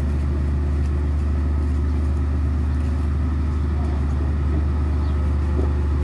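Komatsu D58E bulldozer's diesel engine running with a steady low drone.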